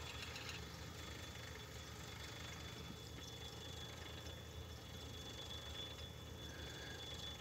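Faint steady machine hum with a thin, steady high-pitched whine over it.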